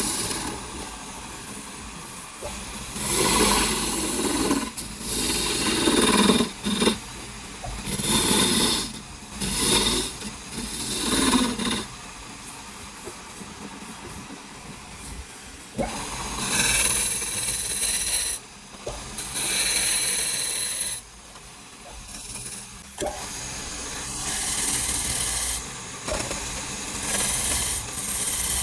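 Power tools working wood in a series of bursts a second or two long, with quieter stretches between.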